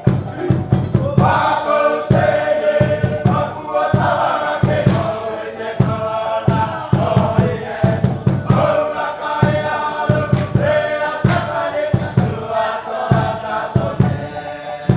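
A group of voices singing and chanting together over a steady, repeating beat.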